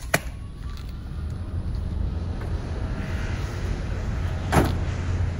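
A rolling suitcase being handled and loaded into an SUV's rear cargo area: a sharp knock just after the start and a thump about four and a half seconds in, over a steady low rumble that grows louder after the first second.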